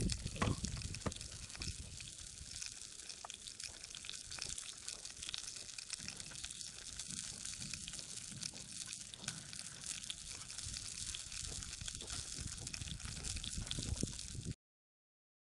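Yellowtail sizzling in a frying pan over a small wood-burning box stove: a steady, fairly faint crackling hiss. The sound cuts out suddenly about a second before the end.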